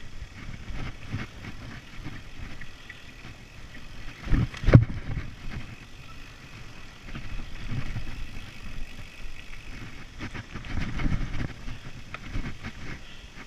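Mountain bike riding fast over a dirt singletrack: tyres rumbling on the trail and wind buffeting the microphone, with the bike rattling over bumps and one loud knock about four and a half seconds in.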